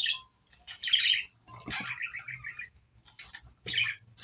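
A small bird chirping: several short high chirps, with a longer warbling call about two seconds in.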